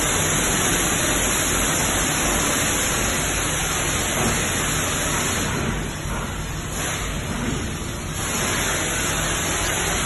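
High-pressure water jet from a pressure-washer wand hissing steadily as it jet-washes a sealed stainless steel touch-panel PC and the wet steel around it. The spray eases for a couple of seconds past the middle, then comes back.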